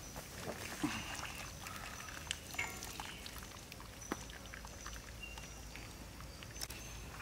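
Hot water pouring and dripping off a boiled cow stomach as it is lifted out of a wok, with scattered small clicks.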